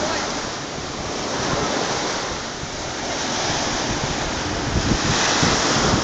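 Black Sea surf breaking and washing up the beach in a continuous wash that swells louder near the end, with wind buffeting the microphone.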